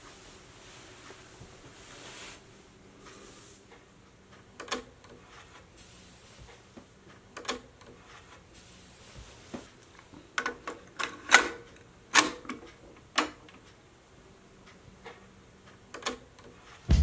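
Scattered sharp mechanical clicks and clunks from a Panasonic stereo cassette deck being handled, most of them bunched around the middle. The last click, near the end, is a press of its piano-key transport buttons that starts the tape.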